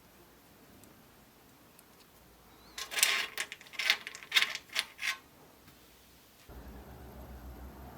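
A quick run of about seven sharp clicks and clatters over two seconds, like hard objects being handled and set down. Near the end a steady low hum comes in.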